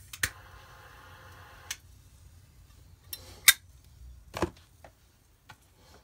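Solid sterling silver Zippo 1941 replica lighter being lit and handled: a pair of sharp metallic clicks as the lid flips open and the wheel is struck, a faint hiss for about a second and a half, then scattered clinks as the lid snaps shut and the lighter is set down. The sharpest clink comes about three and a half seconds in.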